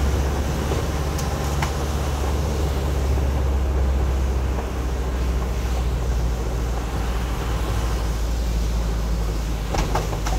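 Car driving on a rain-soaked road, heard from inside the cabin: a steady low engine and road rumble under the hiss of tyres on wet pavement, with a few faint clicks near the end.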